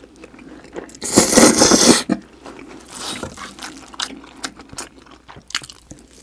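A long, loud slurp of noodles about a second in, then wet chewing and lip-smacking. A wooden spoon clicks and scrapes in a metal pan as it scoops spicy fried rice.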